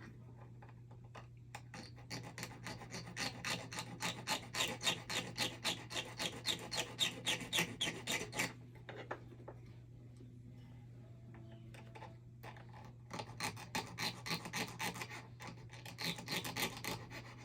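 A small hand file rasping on the end of braided ring wire in quick back-and-forth strokes, in two runs with a pause of several seconds between them: the wire end being filed flat so the two ends can meet squarely for soldering.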